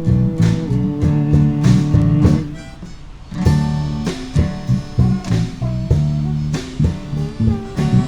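A band playing an instrumental passage on guitar, bass, drums and harmonica. The band stops for about a second about two and a half seconds in, then comes back in together.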